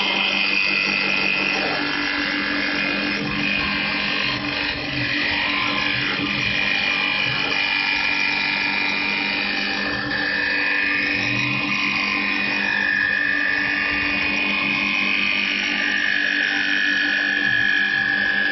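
STL1530 CNC wood lathe turning a staircase handrail piece. The motor whines steadily while the cutter shaves the spinning wood. The high whine drifts slowly in pitch as the cut moves along the piece.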